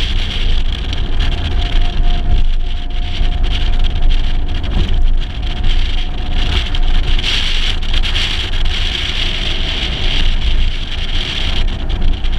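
Wind buffeting and road noise on a camera mounted outside a moving 1956 Mercedes-Benz 300 SL, with the car's straight-six engine running underneath. A steady low rumble with a hiss over it.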